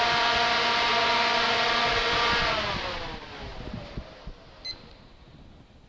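HRSM mobile fogging unit's fan motor running and then spinning down after being switched off, its whine falling in pitch and fading over a couple of seconds. Near the end, a short beep from a digital timer as it is stopped.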